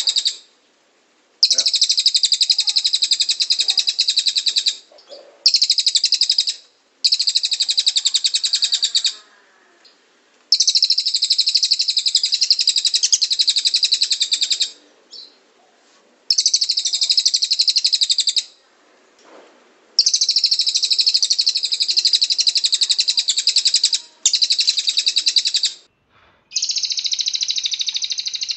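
Cililin bird singing in long bursts of very fast, high-pitched trilling, the 'tembakan' that songbird keepers use as master song, each burst lasting one to four seconds with short pauses between.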